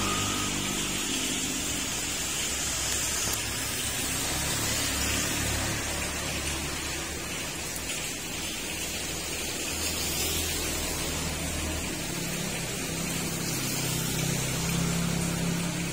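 Heavy rain falling in a steady hiss, with a low rumble that swells and fades underneath.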